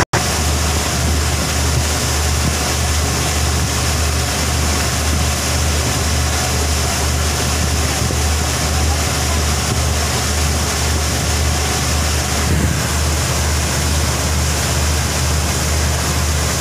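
Steady low throbbing drone of a river taxi boat's engine under way, with the rush of water along the hull and wind on the microphone.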